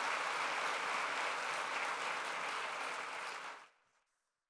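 Audience applauding, fading out quickly about three and a half seconds in.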